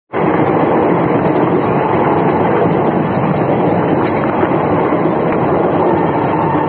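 Indian Railways passenger train running at speed, heard at a coach's open doorway: a loud, steady rush of wheel and track noise, with a few faint clicks in the middle.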